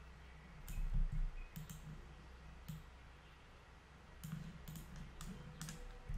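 Computer mouse buttons clicking: about a dozen short, sharp clicks at irregular intervals, bunched from about one to three seconds in and again from about four seconds on.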